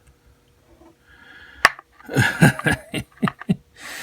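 A man chuckling in a run of short laughs, each falling in pitch, with a sharp click just before. A breathy exhale follows near the end.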